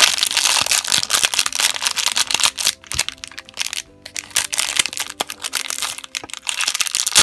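Crinkly plastic foil blind bag being crumpled and handled as it is opened, a dense run of crackles with short gaps. Faint background music with a few held notes plays underneath.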